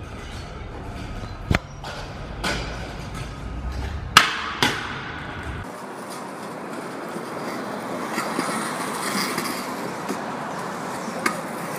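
Stunt scooter riding on concrete: wheels rolling with several sharp clacks of the deck and wheels hitting the ground, the loudest about four seconds in. After about halfway the low rumble stops and a thinner outdoor hiss follows, with one more click near the end.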